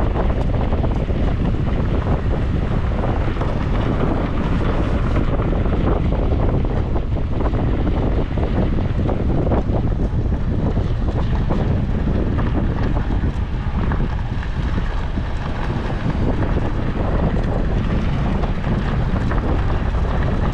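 Steady rumble of wind buffeting the microphone, over the noise of a vehicle driving along a park road.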